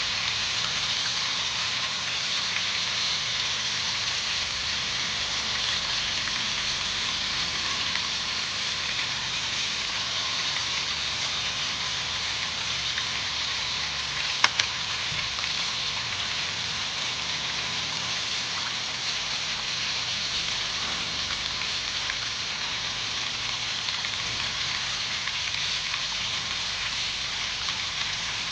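Steady sizzling hiss of tilapia cooking in a pan on the stove, with one sharp click about halfway through.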